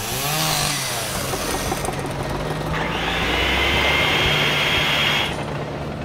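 Power saw sound effect running and cutting through wood, with a high cutting whine that sets in about three seconds in and stops suddenly about two and a half seconds later.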